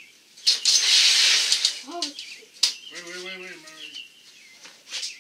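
Wire-feed welder arc crackling and sizzling in one short tack weld on a steel strap frame, lasting a little over a second and starting about half a second in.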